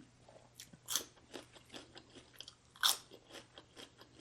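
A person chewing crunchy food close to the microphone. There are two loud crunches, one about a second in and one just before three seconds, with smaller chewing clicks between them.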